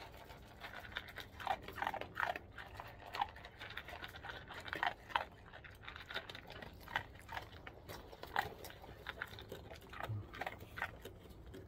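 A dog crunching dry kibble from a tray, with quick, irregular bites and chews.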